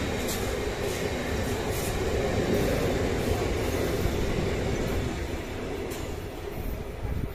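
Intermodal freight wagons rolling past on the track: a steady rumble of steel wheels on rails with a few sharp clicks. The sound fades from about five seconds in as the last wagon goes by.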